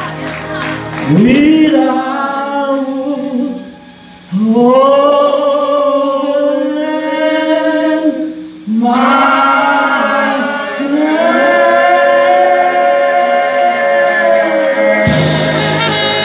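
Singing in long, held notes over quiet accompaniment, in phrases broken by two short pauses. Near the end a fuller, louder accompaniment cuts in.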